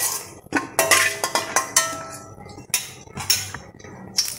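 Metal spatula scraping and clinking against a stainless-steel kadai as fried cauliflower florets are scooped out of the oil. A string of scrapes and sharp, ringing clinks.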